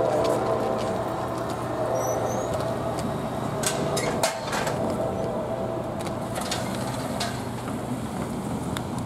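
A steady engine drone that fades over the first couple of seconds. About four seconds in, a car's tyres knock over the crossing rails in a quick cluster of thumps.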